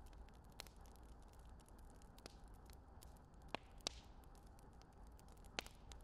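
Potatoes being set into a metal cooking pot of meat and vegetables: a few short, sharp clicks over a faint steady hiss, the loudest two close together about three and a half seconds in and one more near the end.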